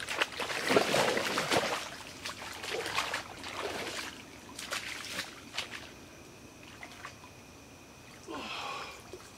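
Water splashing and sloshing as a catfish thrashes and is grabbed by hand in shallow water. The loudest splashing comes in the first two seconds, then several separate splashes follow, dying down after about six seconds.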